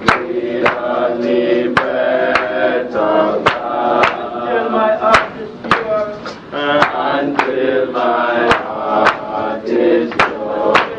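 Slow sung chant with long held notes, over a sharp percussion beat of roughly two strikes a second.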